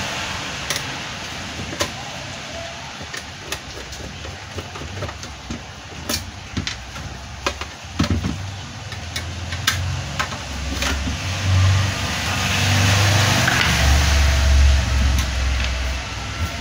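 Hands and a screwdriver handling a solar charge controller's case: scattered clicks and taps of screws and the case on the bench, with a low rumble building in the second half and strongest near the end.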